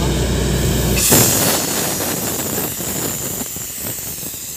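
Truck-mounted borewell drilling rig at work: a steady engine hum that cuts off about a second in, giving way to a loud hiss with rattling.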